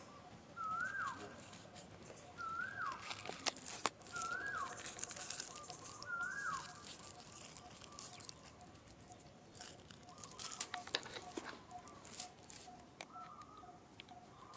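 A bird repeating a short whistled call that rises and then drops sharply, about every two seconds: five clear calls in the first seven seconds, then fainter ones later. Dry crackling rustles come about three to four seconds in and again around eleven seconds.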